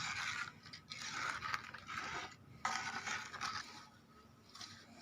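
Stirring scrapes in a metal kadhai holding a liquid mix of milk, curd, ghee, cow urine and dung juice: about one scraping stroke a second, trailing off near the end.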